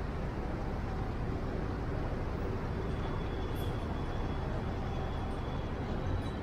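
Steady road traffic noise on a busy city street, an even rumble of passing vehicles, with a faint thin high tone coming in about halfway through.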